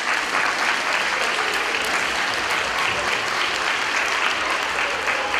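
Audience applause, a dense steady clapping from a large crowd in a hall.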